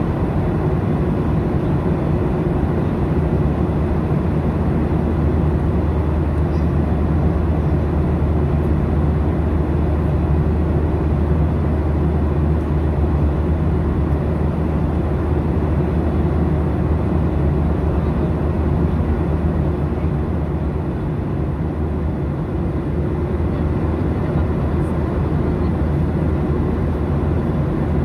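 Steady low drone of a Boeing 737 in flight, heard inside the passenger cabin at a window seat: jet engine noise and airflow blended into one even rumble.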